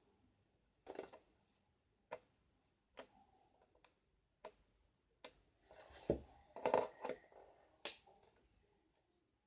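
Sticky fluffy slime, made with shaving cream, being squeezed and pulled in the hands, giving sharp sticky clicks and pops. There are about half a dozen separate clicks, with a denser run of squishing and clicking about six to seven seconds in.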